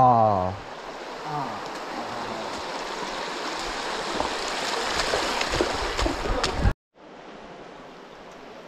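Shallow stream running over stones in a rocky riverbed as a steady rush, with a short shout right at the start and scattered crunches and knocks on the stones about four to six seconds in. The sound cuts out abruptly about seven seconds in and returns as a quieter rush.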